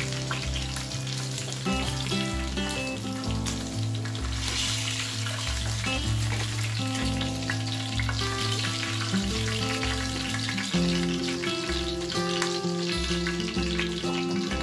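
Hot oil sizzling steadily as masala-coated fish pieces shallow-fry and are turned and lifted out with a spatula. Background music with a steady bass beat plays over it.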